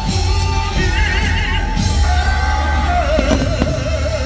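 Fireworks-show soundtrack music: a singer holds long, wavering notes over a heavy, steady bass.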